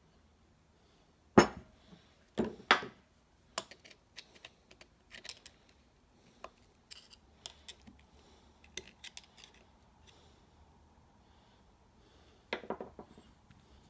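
Steel clutch parts of a John Deere 310D reverser forward clutch pack clinking and knocking as the gear-toothed clutch drum and its plates are handled and worked with a hand tool. A sharp knock comes about a second and a half in, two more follow a second later, then lighter clicks and ticks, and a short cluster of clanks near the end.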